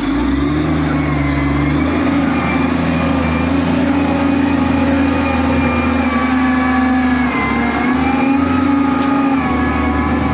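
Bulldozer's diesel engine running steadily under load, its pitch dipping and rising slightly a few times.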